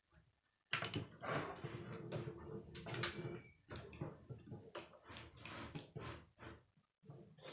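Plastic K'nex rods and connectors clicking, knocking and rattling as they are handled and snapped together on a wooden table, starting about a second in.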